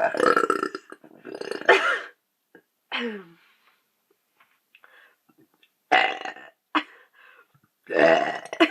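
A woman belching over and over, deliberately forcing out burps as fast as she can. There are about six loud burps with gaps of one to two seconds between them; the one about three seconds in drops in pitch.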